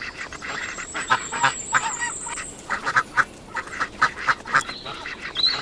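Ducks quacking: many short quacks in quick, irregular succession.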